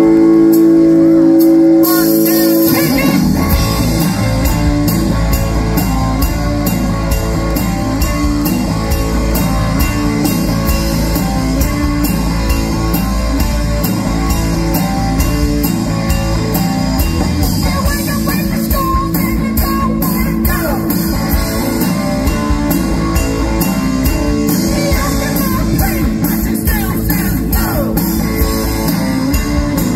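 Live rock band starting a song. A chord is held for about two seconds, then drums, bass and guitars come in and the band plays on at full volume, with vocals.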